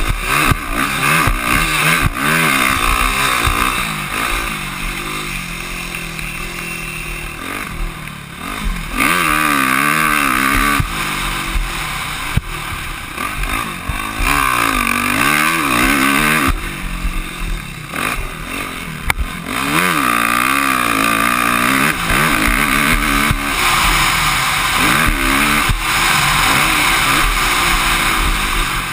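Motocross dirt bike engine revving hard and shifting, its pitch climbing and falling over and over as the throttle is opened and rolled off. It quietens twice, for a few seconds each time, when the rider backs off.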